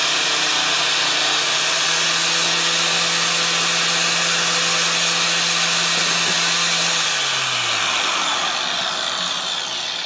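Angle grinder with a T27 flat-bottom flap disc grinding the edge of a steel lawn mower blade at first, throwing sparks. About seven seconds in it is switched off and the motor winds down, its hum falling in pitch.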